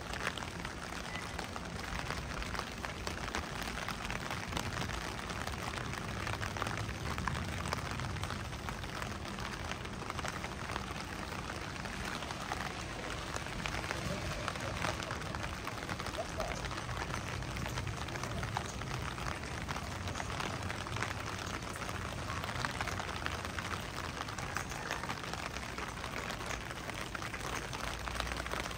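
Steady rain falling, many small drops ticking over an even hiss.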